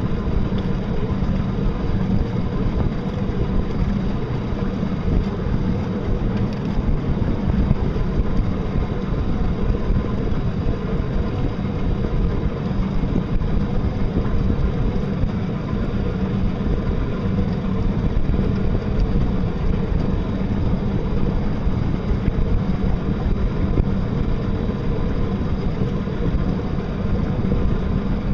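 Small electric-powered boat under way: a steady rush of wind and water, with a faint even hum from its battery- and solar-driven motor.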